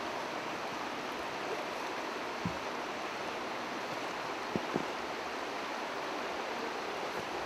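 Steady rush of flowing water from the creek below the hillside, an even hiss that doesn't change. A few dull thumps stand out over it, one about two and a half seconds in and two close together near five seconds.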